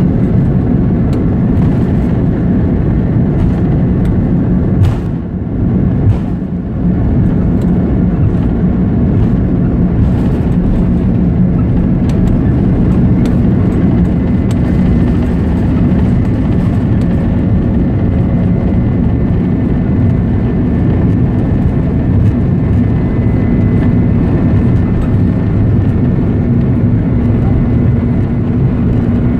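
Jet airliner cabin noise heard from a passenger seat as the plane rolls along the ground: a loud, steady rumble of engines and wheels, dipping briefly about five seconds in.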